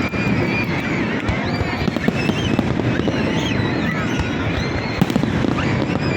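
Fireworks display: a continuous, rapid barrage of bursts and crackling pops with no break.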